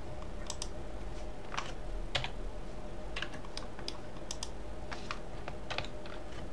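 Computer keyboard and mouse clicks, irregular and sharp, as Blender shortcuts such as Ctrl L are pressed. A faint steady electrical hum runs underneath.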